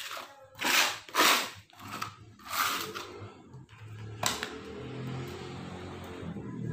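Solid potting medium being scooped and pushed by hand into a plastic pot, making a few rough scraping rustles and then a sharp click. Low background music comes in about halfway through.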